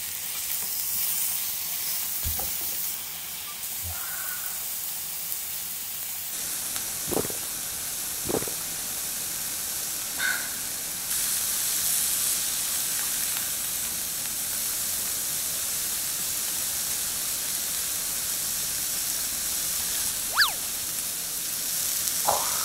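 Wagyu beef slices sizzling steadily on a hot round slotted grill plate over a portable gas burner, with a few short clicks and taps from chopsticks turning the meat.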